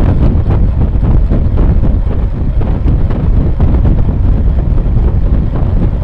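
Wind buffeting the microphone of a bicycle-mounted camera while riding at speed: a loud, steady, low rumble.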